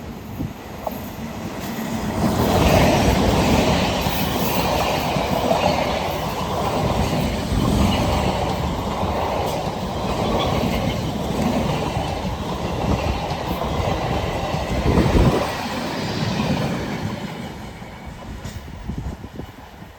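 A train running past on the rails, its wheels and carriages rumbling with a rhythmic clickety-clack. The sound builds over the first two seconds, holds loud with a sharp knock about fifteen seconds in, then fades away over the last few seconds.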